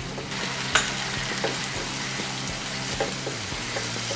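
Vegetables in a thin sauce of chilli sauce, soy sauce, vinegar and water sizzling and bubbling in a ceramic-coated frying pan as the water comes to the boil, while a wooden spatula stirs them and knocks against the pan now and then, the sharpest knock just under a second in. A low steady hum runs underneath.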